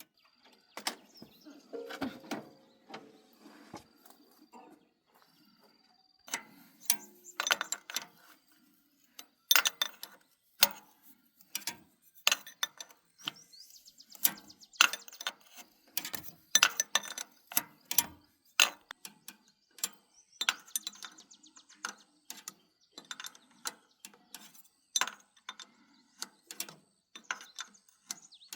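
Hand tools working on metal parts of a plow: irregular sharp clicks and clinks, some in quick runs like a ratchet being worked, with short quiet gaps between.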